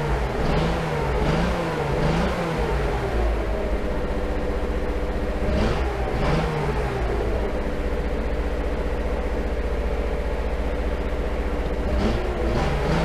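1975 Datsun 280Z's fuel-injected straight-six, running on newly installed injectors, revved several times in quick succession, then once more about halfway through and again near the end, holding a steady, fast idle in between.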